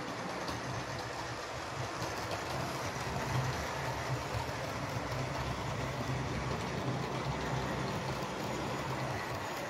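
OO gauge model train, a diesel locomotive hauling Bachmann Mk2a coaches, running past on the track: a steady rolling rumble of wheels on rail with a low motor hum.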